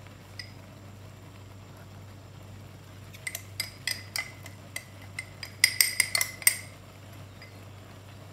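A utensil tapping against a container as ground spice is knocked out onto a pan of cheese sauce: a quick run of sharp, ringing clinks starting about three seconds in, thickest near the end, lasting about three seconds.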